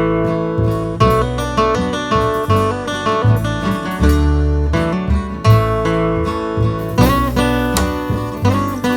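A band playing the instrumental intro of a song: acoustic guitar strumming in a steady rhythm over low bass notes, with no singing yet.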